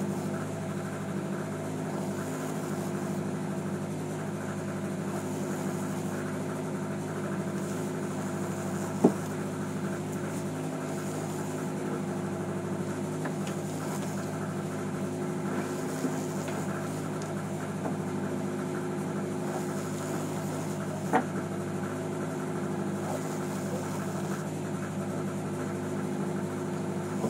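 A fishing boat's engine running steadily, an even drone heard from inside the boat's cabin. Two short sharp knocks sound over it, one near the middle and one later on.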